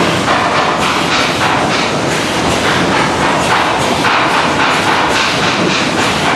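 Food-packaging line machinery running: a loud, steady mechanical din with frequent irregular clacks and knocks.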